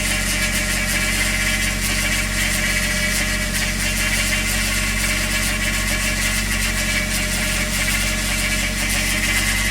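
Toyota 1JZ VVT-i straight-six idling steadily, with a steady high-pitched note over the engine. This is the strange noise the owner links to oil pressure, which comes on shortly after a cold start with a new oil pump fitted.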